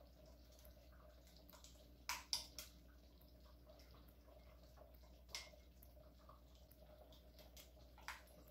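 A few short, soft taps and plops as a wooden spoon scrapes thick sour cream out of its container into a pot: a pair about two seconds in and single ones about five and eight seconds in, otherwise quiet.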